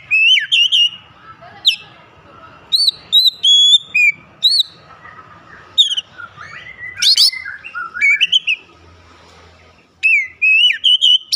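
Oriental magpie-robin singing loudly and energetically: a series of clear whistled notes and short phrases, many sliding up or down in pitch, separated by brief pauses, with a gap of about a second near the end before a final quick run of notes.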